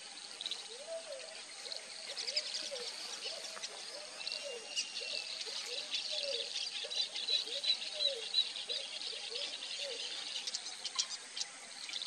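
Outdoor nature ambience: a low call repeated about every 0.7 seconds for about ten seconds, over a steady bed of high-pitched insect and bird chirping.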